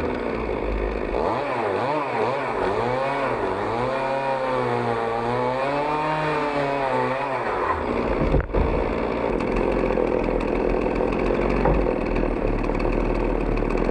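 Two-stroke chainsaw running under load in a homemade chainsaw mill, cutting lengthwise through a log. Its engine pitch wavers up and down for the first several seconds. After a brief break about eight seconds in, it runs more steadily.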